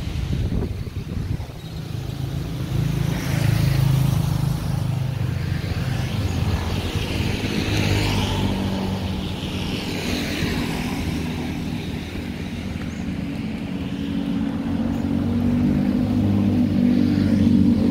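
Street traffic: cars and motorbikes passing on the road, their tyre and engine noise swelling and fading, with a vehicle engine running louder close by near the end.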